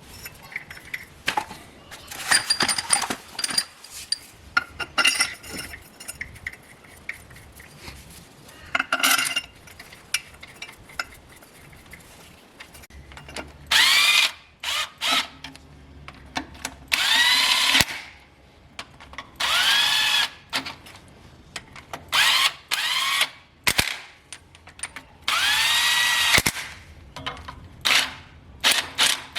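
A power drill run in repeated short bursts, its whine rising as it spins up and falling as it runs down each time. Before the bursts, metal tools clink and rattle.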